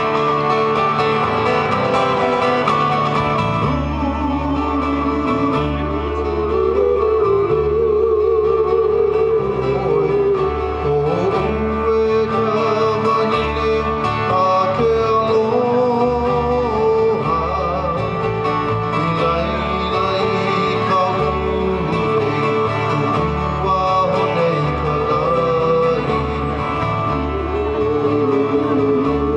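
A slow Hawaiian love song for hula: a singer's wavering, vibrato-laden voice over plucked guitar and a steady bass line.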